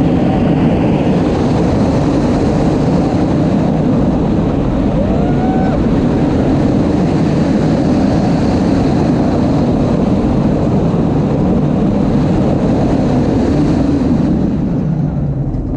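On-ride audio of Silver Bullet, a B&M inverted roller coaster: the train runs along the track with loud, steady rushing wind and rumble, fading down near the end.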